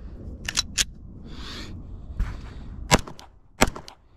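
Two sharp metallic clicks from a 9mm Glock 17 pistol being handled after a round failed to fire. About three seconds in come two loud pistol shots, about 0.7 s apart.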